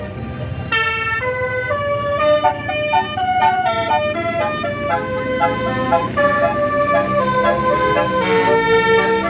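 Bus telolet horn, a multi-tone Basuri air horn, playing a tune of quick stepped notes that starts about a second in and keeps going, over the low rumble of the bus's engine.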